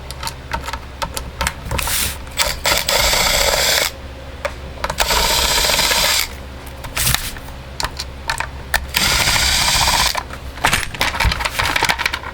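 A power driver running in three bursts of about a second each, backing out screws on the chainsaw's top cover, with small clicks and knocks of handled parts between the bursts.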